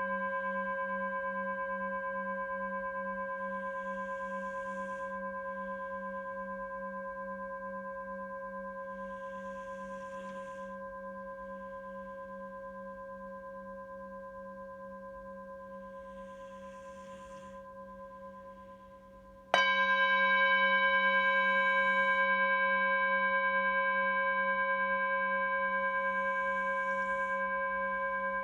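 Tibetan singing bowl ringing, its tones fading slowly, then struck again about 19 seconds in and ringing on; the lowest tone wavers in a steady pulse. Soft breaths can be heard about every six seconds.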